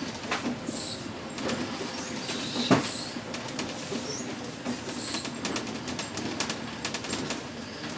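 Inside a moving double-decker bus: steady running noise with the body and fittings rattling and knocking, one sharp knock about three seconds in, and a fast run of rattling clicks in the second half. A few short hisses come and go.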